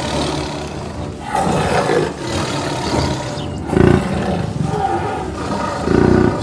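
Big cat roaring and snarling, with a deep roar about four seconds in and another near the end.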